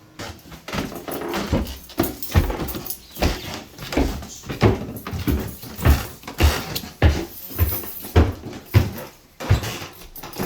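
Footsteps walking at an even pace, a heavy thud roughly every half second or so, with lighter knocks and rustling between the steps.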